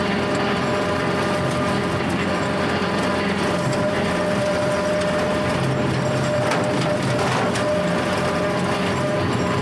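Kubota L4701 tractor's diesel engine running steadily, pulling a Countyline brush hog rotary cutter through tall grass, with a constant tone held through the engine noise.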